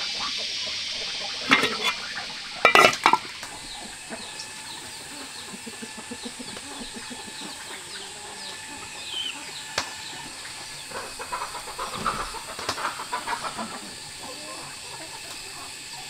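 Chickens clucking, with two loud calls about one and a half and three seconds in, and a run of clucks later on.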